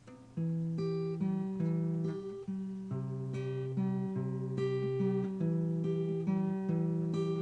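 Acoustic guitar played alone, picking out chords that change every half second or so, coming in strongly about half a second in.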